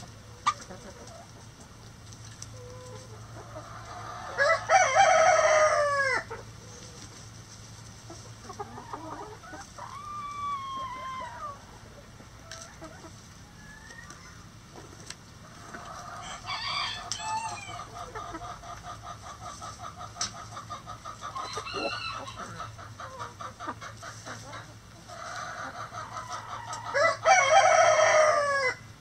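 A rooster crows twice, about four seconds in and again near the end, each crow about two seconds long and dropping in pitch at its close. Between the crows, hens cluck and call, including a long run of rapid clucks.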